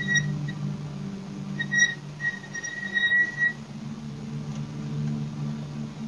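A high, steady whistling tone that comes and goes: briefly at the start, then for about two seconds near the middle. A low steady hum runs throughout.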